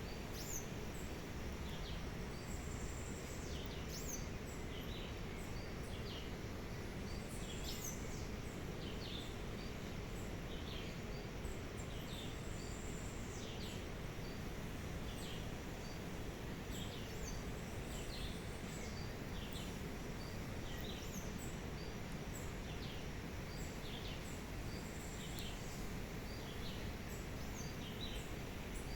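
Small birds giving short, high, repeated chirps about once a second over a steady low outdoor background noise.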